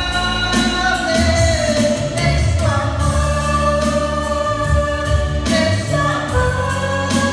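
Spanish-language Christian song sung live by a man into a handheld microphone, amplified through PA speakers over recorded accompaniment: long held sung notes over a steady bass beat.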